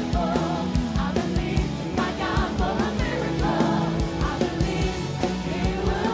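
Live gospel band music with a steady drum beat and bass, and a singer's wordless vocal runs over it.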